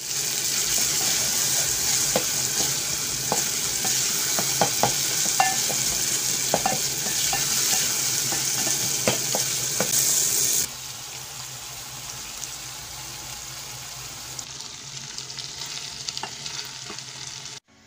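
Chopped onions and tomatoes sizzling as they fry in an aluminium pot, stirred with a wooden spoon that scrapes and knocks against the pot. About ten seconds in, the sizzling drops to a quieter level and carries on.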